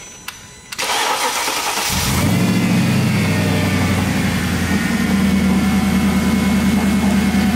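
Mercedes-Benz E55 AMG's supercharged 5.4-litre V8 (M113K) cranked and fired about a second in, settling within another second into a loud, steady idle. It is the first start on fresh one-step-colder spark plugs, fitted to cure a misfire on cylinder 4.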